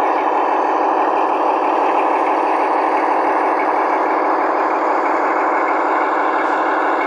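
An LGB large-scale model of a red DB class 251 diesel locomotive running close by, hauling a train of tank wagons: a steady, even mechanical running sound.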